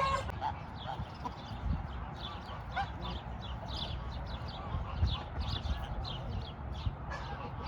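Farmyard poultry calling: rapid short high chirps keep going, with an occasional lower call, over a steady low rumble.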